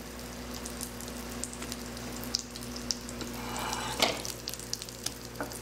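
A slice of egg-soaked bread frying in butter in a pan on low-to-medium heat, sizzling and crackling steadily. About four seconds in there is a brief louder wet splash as a soaked slice is lifted from the egg mixture, with batter dripping back into the bowl.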